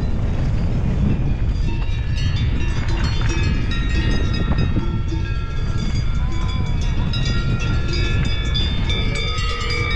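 Riding noise from a mountain bike descending a rough gravel trail, heard on a helmet camera: a steady rumble with overlapping high ringing tones that come and go.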